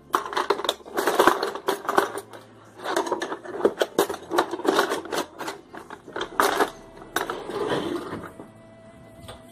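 Clattering and clicking of kitchen items being handled and moved about, a busy run of knocks and rustles that thins out about eight seconds in.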